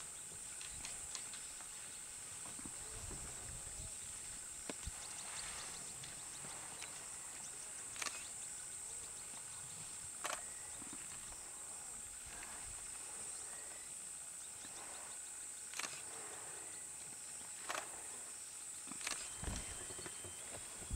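Insects trilling steadily at a high pitch, with sharp clicks every few seconds.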